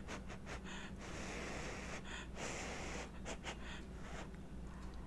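A person blowing on a spoonful of hot chicken pot pie to cool it: a series of short puffs of breath through pursed lips.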